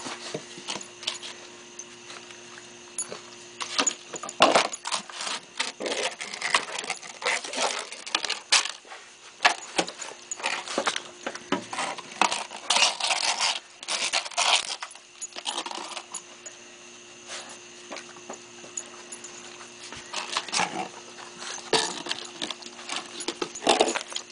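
Maremma sheepdog puppy eating: a busy run of irregular clicks and metallic clinks, with a quieter stretch about two-thirds through.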